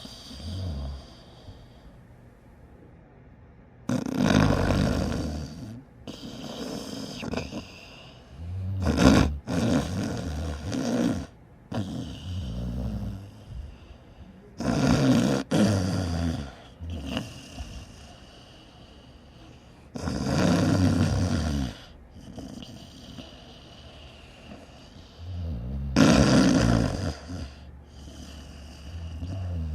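A person snoring: five loud snores, one about every five to six seconds, each lasting one to two seconds, with quieter breathing sounds between them.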